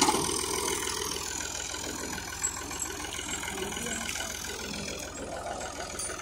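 Al-Ghazi tractor's diesel engine idling steadily, with a short knock about two and a half seconds in.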